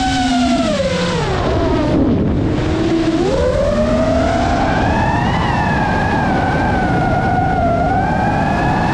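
Brushless motors and propellers of a Geprc Mark 5 FPV quadcopter whining, the pitch falling steeply about a second in as the motors slow, then climbing back about three seconds in and wavering as the throttle changes.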